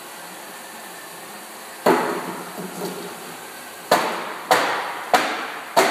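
A plastic jug being smashed on a concrete floor: five loud bangs, one about two seconds in, then four more in quick succession about half a second apart, each echoing briefly.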